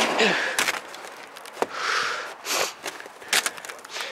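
Knocks, scrapes and rustling of climbing over corrugated metal roof sheeting and gripping a metal bar, with two sharper knocks about a second and a half in and near three and a half seconds.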